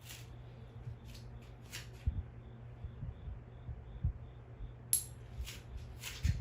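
Light clicks and soft low thuds, scattered irregularly over a faint steady hum.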